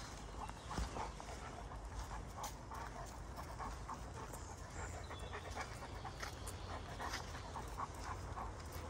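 Greater Swiss Mountain Dog panting steadily as it walks, with short repeated footstep sounds on a dirt path.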